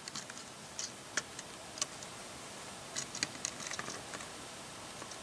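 Light, scattered clicks of plastic LEGO parts as fingers handle a small snowplow model and work its adjustable plow blade, with a quick run of clicks about three seconds in.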